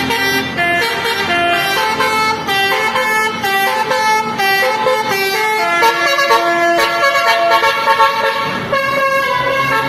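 Indonesian telolet (basuri) musical air horn on a coach, playing its "genit" mode: a full "piw piw" melody of quick, changing horn notes, moving to longer held notes in the second half.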